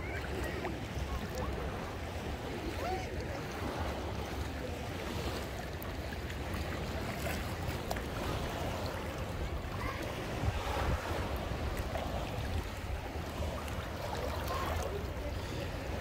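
Sea waves washing on the shore, a steady hiss, with wind rumbling on the microphone.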